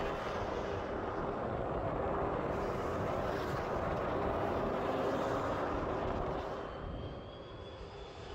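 Jet engines of a twin-engine widebody airliner landing, a steady loud rushing noise that falls away about seven seconds in. Near the end a fainter, higher jet whine from a business jet on approach takes over.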